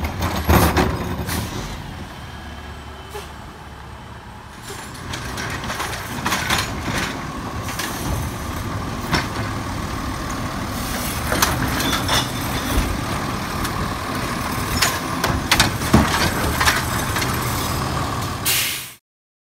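Garbage truck's automated side-loader arm gripping, lifting and dumping wheeled recycling carts and setting them down, with the truck's diesel engine running and several sharp knocks and bangs of plastic carts against the arm and hopper. A steady high whine runs through the second half, and the sound cuts off suddenly near the end.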